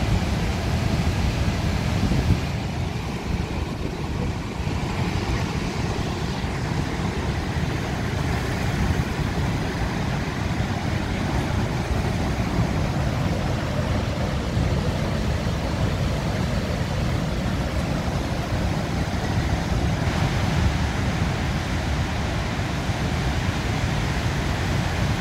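Niagara's Horseshoe Falls: the steady, unbroken rush of a huge volume of water pouring over the crest, with a heavy low rumble.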